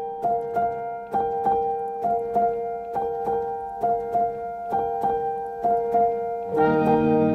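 Background music: a keyboard repeating short notes over a held note, joined by fuller chords and a bass line about six and a half seconds in.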